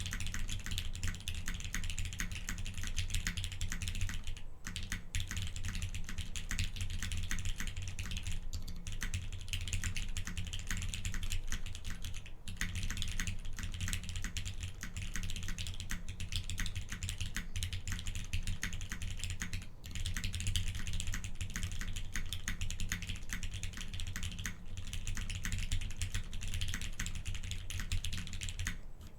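Continuous fast typing on a custom mechanical keyboard with lubed Cherry MX Black linear switches in a polycarbonate half plate and GMK keycaps: a steady stream of key clacks, pausing briefly every few seconds.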